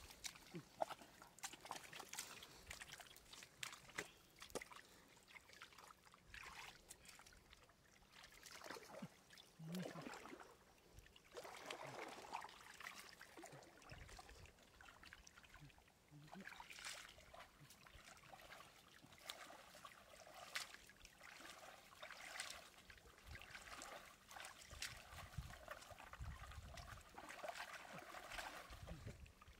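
Faint trickling and sloshing of shallow water, with scattered small splashes and clicks.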